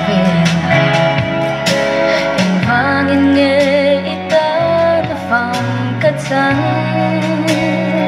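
A young woman singing a Mizo song into a microphone over an instrumental backing, with a wavering vibrato on a held note a few seconds in.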